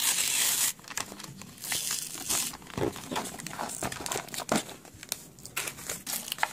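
Paper-card backing being torn and peeled off a plastic blister pack, a Pokémon TCG pin collection. There are loud rips at the start and again about two seconds in, then crinkling and crackling of the plastic and torn paper.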